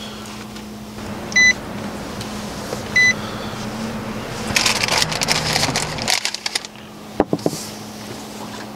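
A car's warning chime beeping at a slow even pace, about one and a half seconds apart, over a steady low hum. Then a short stretch of rustling and scuffing noise about four to six seconds in, and a single click.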